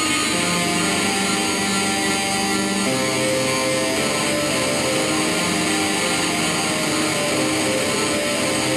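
Experimental noise-ambient music: a steady wall of hissing noise over held low drone tones that step to new pitches a couple of times.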